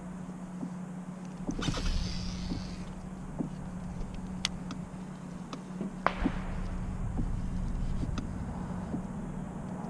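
Steady hum of the kayak's electric trolling motor, with scattered clicks and knocks from the fishing rod and reel being handled. A brief rush of noise comes about two seconds in and a sharper knock about six seconds in.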